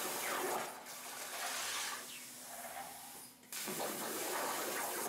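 CNC plasma cutting torch hissing as it cuts sheet steel, a steady rushing hiss that drops away and restarts suddenly a little after three seconds in.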